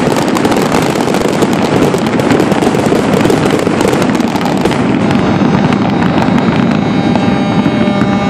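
Fireworks crackling in a dense, continuous volley of pops. After about five seconds the crackle thins and a steady hum with a few even tones comes through.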